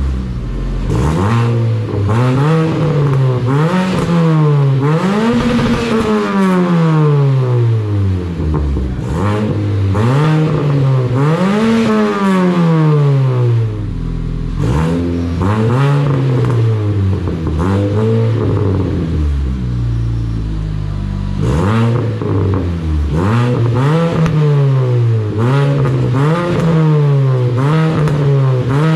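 Turbocharged Ford 2.3 EcoBoost four-cylinder, breathing through a custom 3-inch exhaust with a Vibrant Ultra Quiet resonator, being blipped again and again from idle, each rev rising and falling back quickly. It settles to idle for several seconds around the middle, then the quick blips resume. These are the engine's first revs on the new exhaust.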